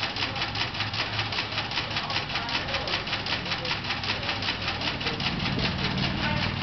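Newman motor running under a water-pump load, with a rapid, even clicking throughout and water gushing from a hose into a plastic tub. A low hum grows louder about five seconds in.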